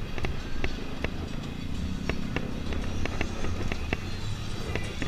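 Motorcycle engine running at low speed in slow traffic, a steady low rumble crossed by irregular sharp pops and clicks.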